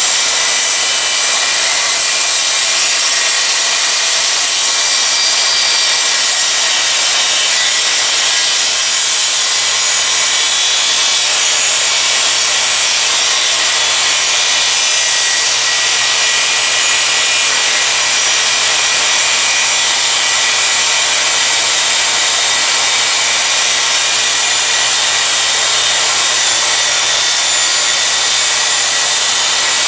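Electric miter saw running steadily with its blade cutting slowly through wood, an even motor whine and cutting noise with no stops or changes.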